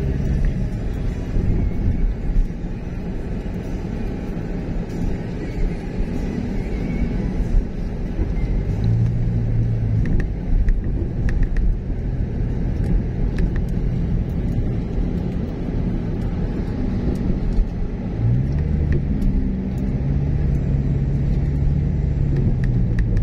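A car driving on a paved road, with a steady low rumble of road and engine noise. An engine's pitch climbs twice as it speeds up, about nine seconds in and again near the end.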